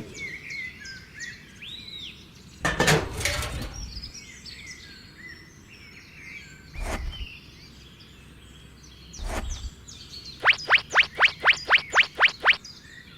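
Birds chirping in a background ambience, with a short noisy rush about three seconds in and a couple of brief clicks. Near the end comes a fast run of about ten loud rising chirps, some five a second.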